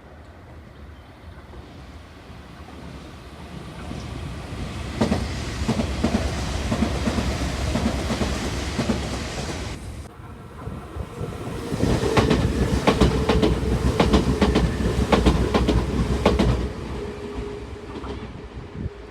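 Nankai Railway electric train running past, its wheels clacking rhythmically over the rail joints. The sound builds over the first few seconds and is loudest in two stretches with a short dip between. A steady whine carries on as the clatter fades near the end.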